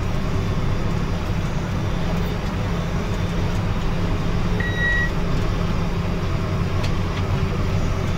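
Tractor engine running steadily at about 2,000 rpm while pulling a large square baler, heard from inside the cab. A single short, high beep sounds about halfway through.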